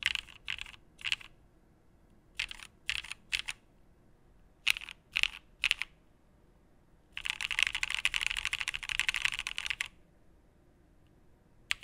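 Mechanical keyboard being typed on: a Geonworks Frog with an aluminium plate and lubed linear switches, Cream stems in Cherry Black Retool housings. Three groups of three slow keystrokes come first, then about three seconds of fast typing, and a single keystroke near the end.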